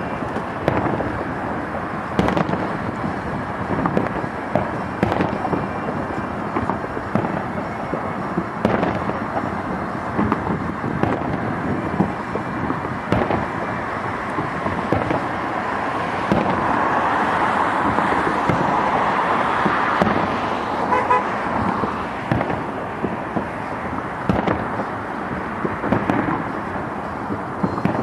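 Salute fireworks going off in a rapid series of bangs and booms. Through the middle stretch they come denser and louder.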